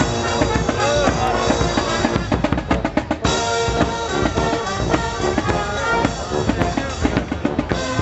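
Marching band playing: wind instruments holding steady notes over bass and snare drums beating, with quick drum rolls about two and a half seconds in and again near the end.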